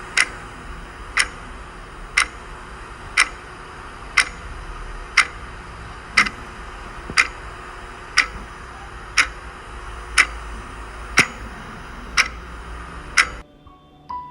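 Clock ticking steadily once a second, fourteen ticks over a faint steady hiss; the ticking and hiss cut off suddenly near the end.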